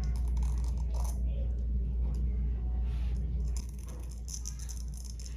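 Recorded sound effect of Velcro being pulled apart in repeated ripping tears, heard as short bursts near the start and again near the end.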